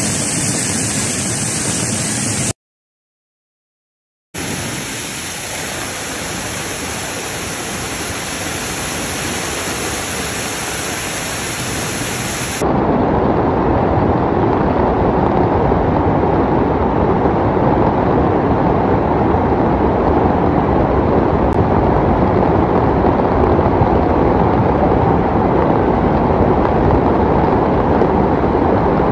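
Muddy flash-flood water rushing and churning past in a steady torrent. The noise breaks off into silence for a moment about three seconds in, then from about thirteen seconds in it is louder and deeper.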